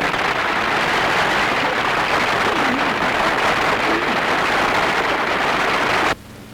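Audience applauding, a dense steady clatter of clapping on a 1932 newsreel sound recording, cutting off abruptly near the end.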